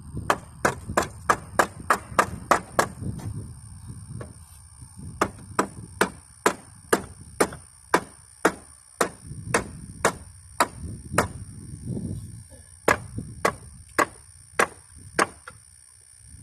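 Hammer blows on the wood of a bench swing being taken apart: sharp knocks about three a second, in four runs with short pauses between them.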